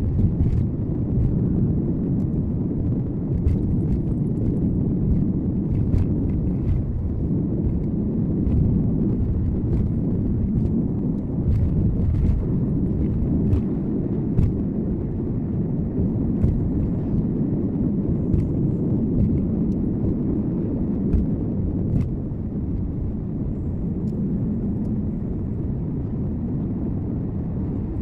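Car driving along, picked up by a dashcam inside the cabin: a steady low rumble of road and engine noise, with scattered light ticks and clicks.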